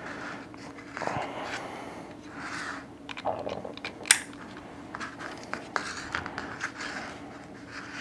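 Handling of a plastic handheld cable tester while RJ-45 plugs are pushed into its ports: soft rustling and scraping with a few small plastic clicks, the sharpest about four seconds in.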